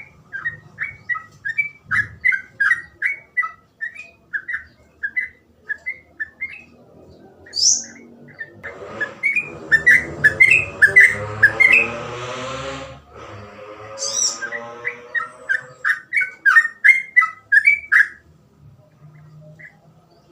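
Yellow-vented bulbul singing a fast 'ropel' song: rapid runs of short, clear whistled notes, about three to four a second, with short pauses between runs. Midway a steady background drone rises slowly in pitch for several seconds under the song, and a few brief very high chirps come in now and then.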